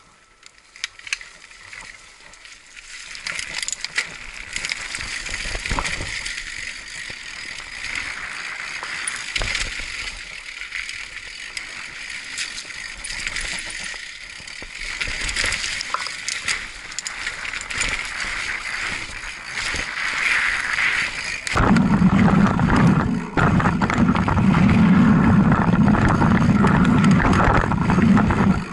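Mountain bike riding down a dirt trail: tyre and trail noise with rattling and clicking from the bike, building up from quiet as it gets going. About twenty seconds in the sound jumps to a much louder, low rumble with heavier rattling.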